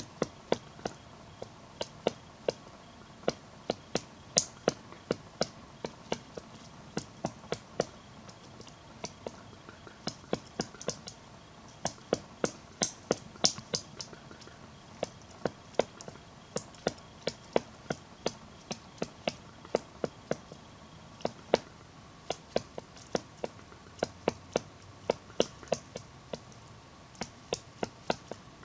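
Black woodpecker hammering at wood: single sharp knocks at an uneven pace, about two or three a second, not a fast drumming roll.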